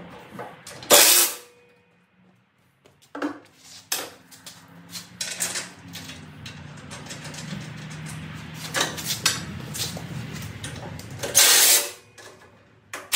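A cordless drill-driver running several times and metal knocks and clanks as bolts go back into the steel housing of a flail mower. The two loudest, short sounds come about a second in and near the end, with a steadier stretch of driver and rattle in between.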